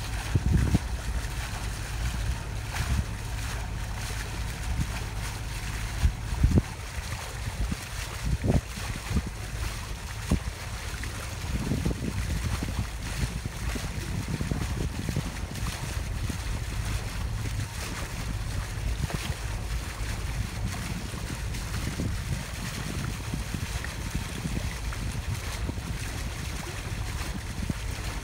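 A boat under way, a steady low rumble with water noise, with gusts of wind buffeting the microphone every few seconds.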